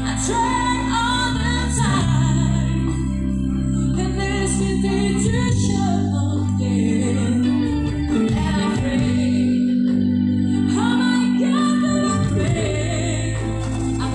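Music with singing over held low notes.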